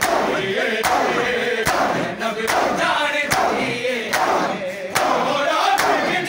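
Crowd of men chanting a Punjabi noha in unison while beating their chests in matam, the hand slaps landing together in a steady rhythm about once every 0.8 seconds.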